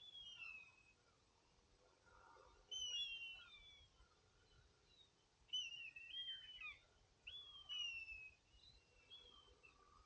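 Faint songbird calls: short chirps and whistled notes that mostly slide down in pitch, coming in bursts every second or two.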